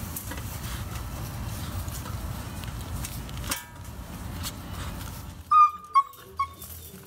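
A puppy giving three short, high-pitched yelps in quick succession about two thirds of the way in, over a low rumbling background.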